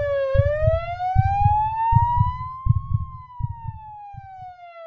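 A single siren-like wailing tone that rises slowly for about three seconds, then falls back. Low thumping pulses sound underneath and thin out in the second half.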